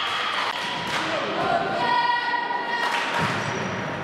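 Young female voices shouting and cheering together in a large sports hall, held high-pitched calls strongest about halfway through, with a few sharp thuds.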